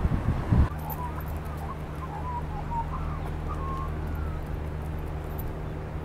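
Australian magpies giving short, gliding, warbling calls, the electronic-sounding burble likened to R2-D2. A steady low hum runs underneath, after a brief low rumble in the first moment.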